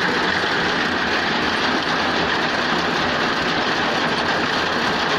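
Tractor-mounted reaper running off the tractor, with the tractor engine running over a dense, steady mechanical clatter of the reaper's cutter bar and conveyor chain.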